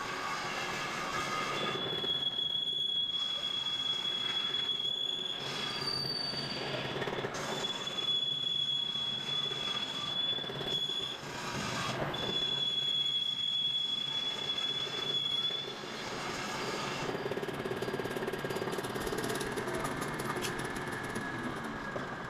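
Steel being worked by a machine, giving a high-pitched metal-on-metal squeal in three long stretches of a few seconds each over a steady noisy grinding rumble. The squeal briefly jumps higher in pitch about six seconds in, then fades into a rougher scraping near the end.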